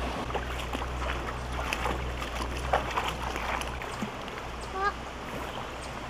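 Shallow creek water running over rocks, with scattered clicks and knocks of footsteps and handling on the stones. One short high vocal call near five seconds in.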